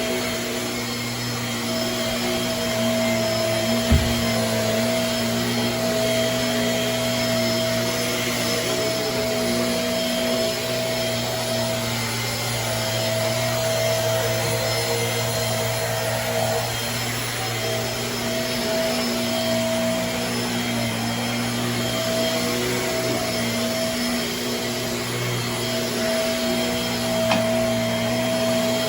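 Shark Navigator Swivel bagless upright vacuum running steadily, its motor giving a constant hum with a whine over it that wavers a little as it is pushed about. A single knock about four seconds in.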